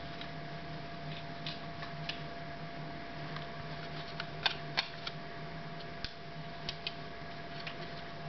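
Scattered light clicks and taps of cats' paws batting a ball inside a wooden peek-a-boo puzzle box, with two sharper knocks about halfway through, over a steady low hum.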